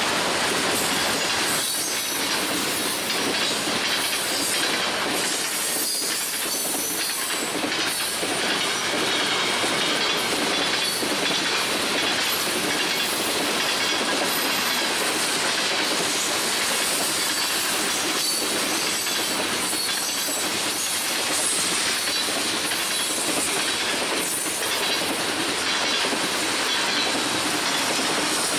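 Mixed freight train cars rolling past on the rails: a steady rush of wheel-on-rail noise with faint, irregular clicks over the rail joints.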